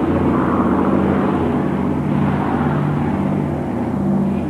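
Piston engines of vintage propeller aircraft flying over, a steady droning hum.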